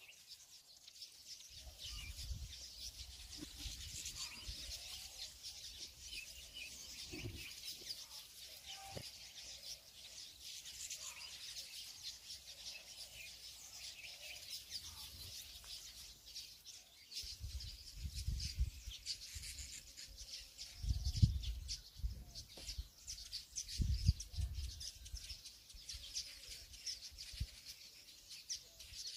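Small birds chirping continuously, with a few low rumbles partway through.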